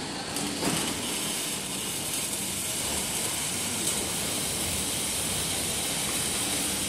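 Tongfu vertical band sawmill for round logs running on its CNC log carriage: a steady mechanical rattle with a high hiss, and one sharp knock a little under a second in.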